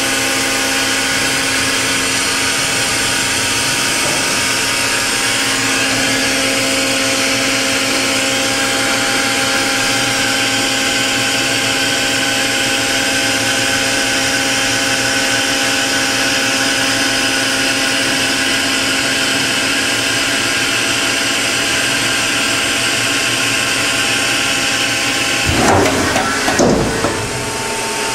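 Okuma & Howa Millac 630H horizontal machining center running its warm-up program, its 40 HP spindle turning at speed with a steady machine whine. About 25 seconds in, a brief louder stretch where the pitch sweeps up and down, as the program changes spindle speed or moves the axes.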